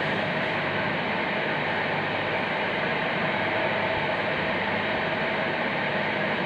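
Steady, even background hiss of room noise, with no distinct events.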